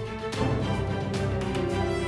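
Background music: a dramatic soundtrack with sustained notes, a new section starting about a third of a second in.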